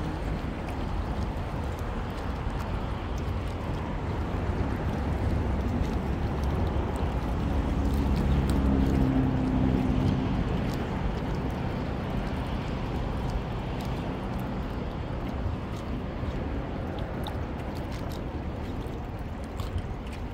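Steady low rumble of distant motor traffic, with an engine passing that grows louder around the middle and then fades away.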